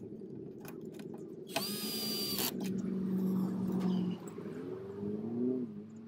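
Cordless drill/driver running in bursts as it drives a screw into the sheet-metal mounting strap of an AC capacitor. The motor's pitch rises and falls with the trigger, with a brief harsh high-pitched burst about one and a half seconds in.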